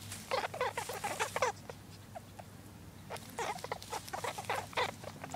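Dry straw and plucked fur of a rabbit nest rustling and crackling as the bedding is disturbed. The crackling comes in two bursts of quick small snaps, one in the first second and a half and another from about three seconds in.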